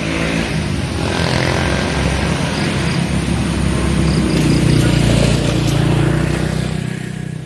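A motor vehicle passing on the road, its engine growing louder to a peak about two-thirds of the way through, then fading away.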